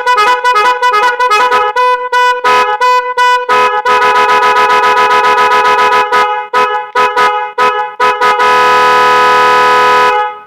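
Loud musical vehicle horn of the kind fitted to tractors and trucks, sounding rapid short notes that jump between pitches. It then gives one long steady blast that cuts off just before the end.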